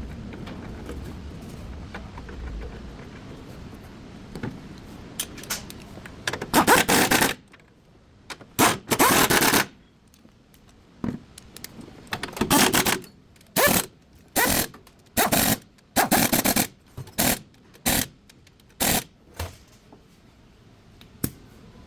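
An impact wrench hammering in about a dozen short bursts, each a fraction of a second to about a second long, at irregular spacing. Before the bursts start, for the first few seconds, there is only a low steady hum.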